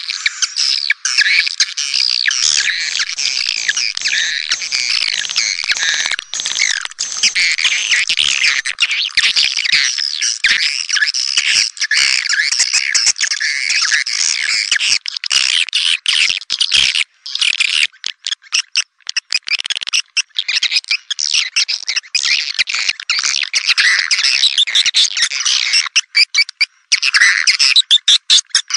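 Edible-nest swiftlets twittering: a dense, continuous chatter of many overlapping high chirps, the kind of swiftlet call recording played to lure the birds into a swiftlet house, with a couple of brief breaks in the second half.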